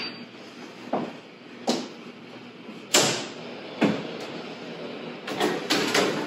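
Wall oven door opened and a metal baking pan slid into the oven: a series of clunks and knocks, the loudest about three seconds in, with a quick cluster of them near the end.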